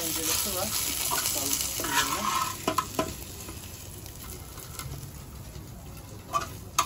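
Anchovies sizzling in hot oil in a frying pan as metal tongs turn them and lift them out. The sizzle is loudest for the first few seconds and then dies down. Sharp clicks of the tongs against the pan come about three seconds in and again near the end.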